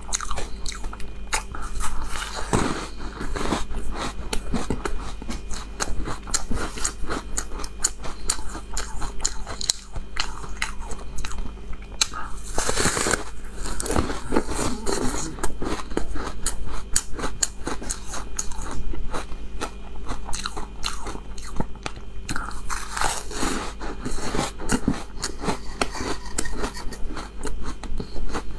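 Crunching and chewing of frozen milk ice close to a lapel microphone: a continuous crackle of small ice cracks, with a few louder crunching bites about two seconds in, around the middle and near the end.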